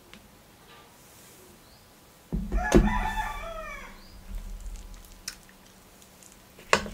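A rooster crows once, about two and a half seconds in: a single crow of just over a second that falls in pitch at its end, over a low rumble that starts just before it. A sharp click comes near the end.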